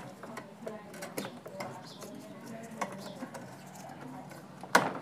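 Faint handling noise of electrical tape being wrapped around the cooler motor and pump wires, with scattered soft ticks and one sharp click near the end.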